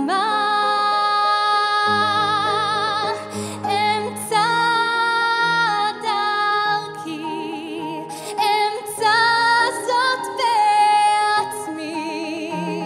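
Woman singing a ballad climax in long held notes with a wide vibrato, moving from note to note every second or two, over a sustained instrumental accompaniment.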